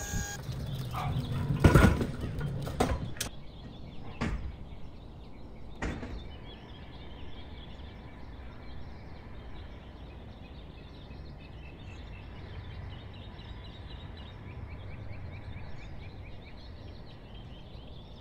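Delivery box truck at the kerb: several loud clanks and knocks from the liftgate and pallet in the first few seconds, the loudest about two seconds in, then the truck's engine running with a steady low rumble. Birds chirp faintly in the background.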